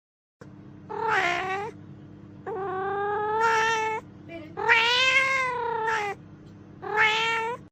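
A cat meowing four times in long, drawn-out meows, the middle two the longest.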